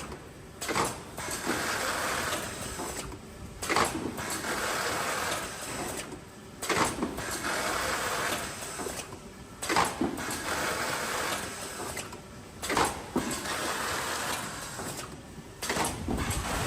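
PY-400 automatic box forming and taping machine running through its cycles, about one every three seconds: a stretch of steady mechanical running noise, a short pause, then a sharp clack as the next cycle starts.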